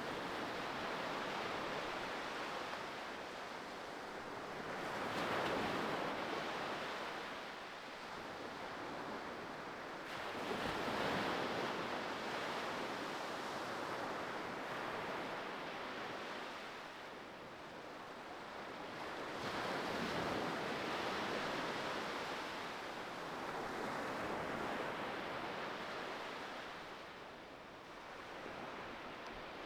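Ocean surf: waves washing in, a continuous rush that swells and fades every several seconds.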